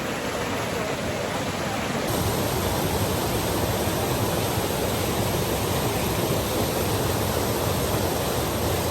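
Steady rushing water of a river waterfall, a little fuller and louder from about two seconds in.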